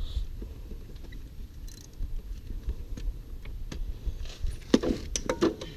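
Hand tools and loose engine parts being handled: scattered clicks and light clatter, busiest about five seconds in, over a low rumble.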